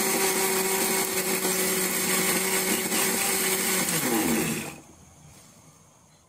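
Electric mixer-grinder running steadily, grinding crab claws with a little water, then switched off about four seconds in, its motor whine falling in pitch as it spins down.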